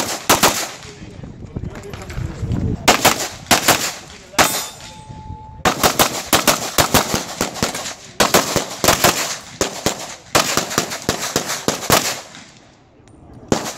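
Rapid strings of shots from an Open-division competition pistol, fired in fast pairs and longer runs with short pauses between. The dense runs fall in the middle of the stretch, and the firing breaks off near the end.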